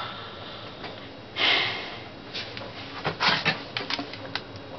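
A person breathing out hard close to the microphone about a second and a half in, followed by a few faint clicks and mouth noises in a small room.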